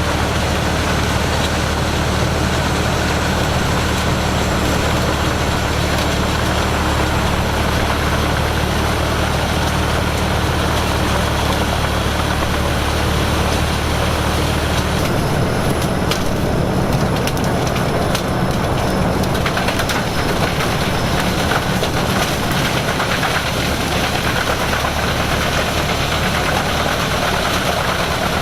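Heavy diesel machinery running steadily, with a loud, constant low engine hum; about halfway through, the low part of the hum changes.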